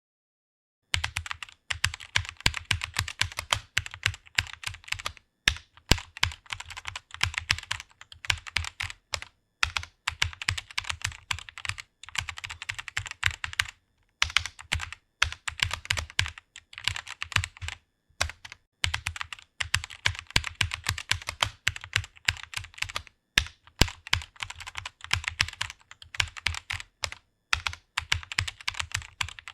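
Computer keyboard being typed on: rapid runs of keystroke clicks with short pauses every few seconds, starting about a second in.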